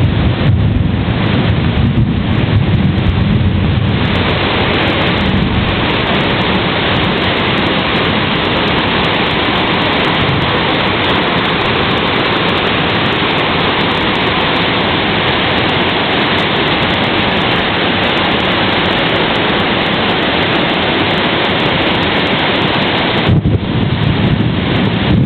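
Heavy rain pouring down: a dense, steady hiss of a downpour, with some low rumbling at the start and again near the end.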